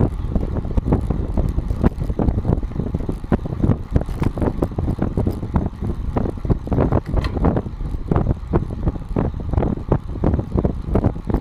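Wind buffeting and tyre rumble picked up by a GoPro mounted under a bicycle saddle while riding on asphalt, with frequent small knocks and rattles throughout.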